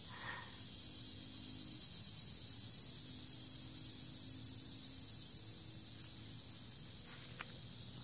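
Insects chirring outdoors: a steady, high-pitched, rapidly pulsing chorus that fades slightly toward the end.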